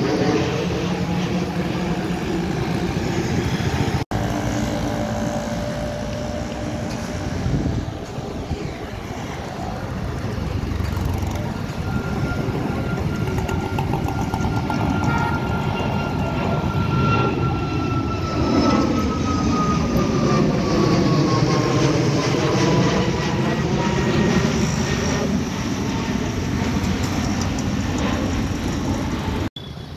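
Jet engine noise of airliners climbing out after takeoff: an Airbus A320neo's CFM LEAP-1A turbofans overhead, then, after a cut about four seconds in, a Boeing 737 MAX 8's CFM LEAP-1B turbofans at climb power. A steady rushing noise, with an engine whine that falls in pitch as the jet passes, from about halfway through.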